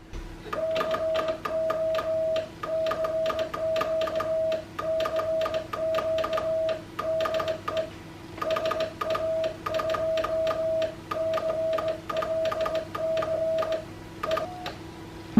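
Morse code CW signal heard through a homebuilt Paraset replica's regenerative receiver: a steady mid-pitched beep keyed on and off in dots and dashes, with a short pause about eight seconds in. Sharp clicks mark each keying, over a faint steady hum.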